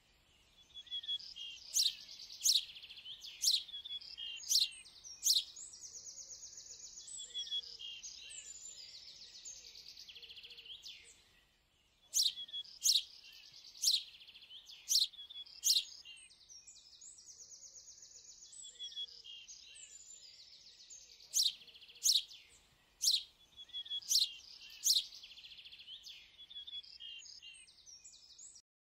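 Recorded birdsong of high sharp chirps and buzzy trills, the same passage repeating about every ten seconds.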